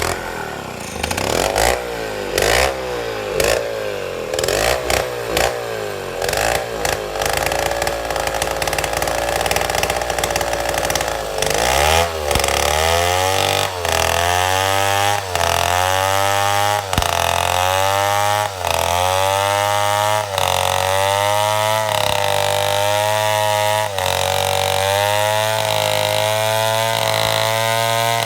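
Two-stroke chainsaw running, revved up and down for the first dozen seconds. It then holds at high revs with short repeated dips in pitch, as the chain cuts through timber to square a beam.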